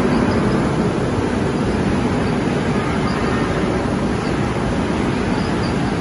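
Billet continuous casting machine running, with its withdrawal and straightening rolls drawing out a red-hot billet: a loud, steady, even machine noise with a deep low end and no distinct knocks or pauses.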